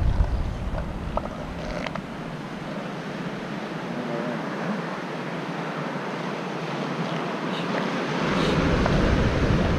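Ocean surf washing on the beach, with wind buffeting the microphone: the wind rumble is heavy at the start, drops away, and comes back strongly about eight seconds in.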